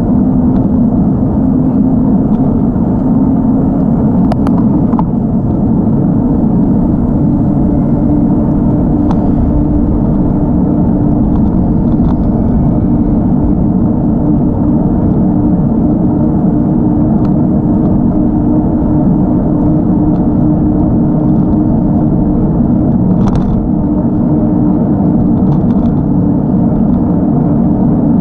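Steady rush of wind buffeting a bicycle-mounted camera's microphone while riding, mixed with the low hum of tyres rolling on asphalt. A few faint ticks sound now and then.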